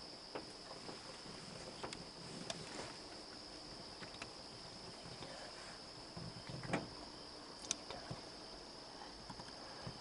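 Crickets and other night insects calling in a steady, continuous high-pitched chorus. Scattered faint clicks and rustles sit over it, the sharpest a little before seven seconds in.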